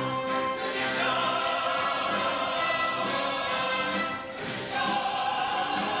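A stage chorus singing together in a musical, with instrumental accompaniment. The sound dips briefly about four seconds in and then carries on.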